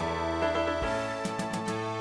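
Background music: held notes over a low bass line that changes pitch about once a second.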